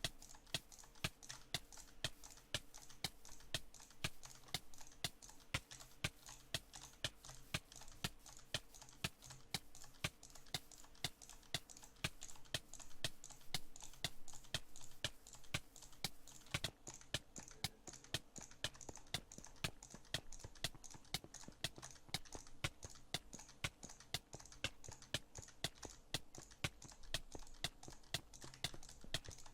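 Sharp clicks repeated at a steady, even pace, about two to three a second, over a faint low hum.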